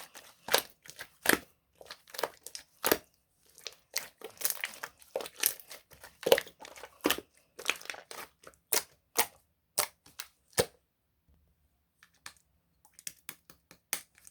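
Clear green slime being squeezed and pressed by hand, giving irregular sharp clicks and pops. They stop for about a second and a half past the middle, then a few sparse ones come near the end.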